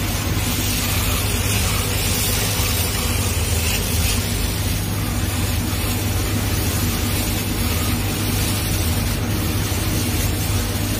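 Dual-head laser cutting machine running as it cuts mirror-gold acrylic sheet: a steady low hum under an even, airy hiss.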